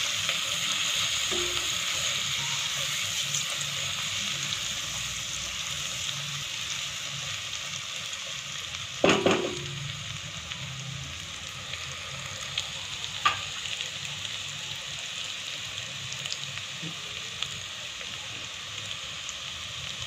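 Chopped onions sizzling steadily in hot oil in a metal pot, the sizzle slowly dying down. A plastic spatula knocks against the pot about nine seconds in, and again a few seconds later.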